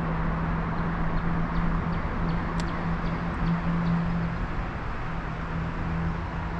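Steady creek-side background: a constant rushing hiss with a low steady hum under it, a few faint high chirps and one light click about two and a half seconds in.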